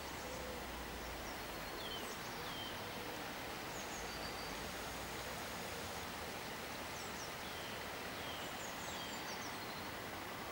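Faint, steady outdoor background hiss with scattered short, high chirps from small birds.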